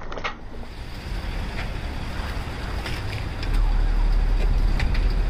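Car creeping forward on wet asphalt: a steady low rumble of engine and tyres with wind buffeting the microphone, growing louder about three and a half seconds in, with a few faint crackles.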